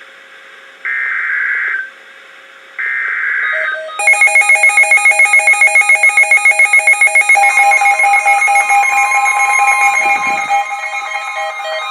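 Two bursts of the EAS SAME digital header, each about a second long. About four seconds in, loud rapid electronic alarm beeping from an alert decoder takes over. The steady 1050 Hz NOAA Weather Radio warning tone joins at about seven and a half seconds, signalling that a warning follows.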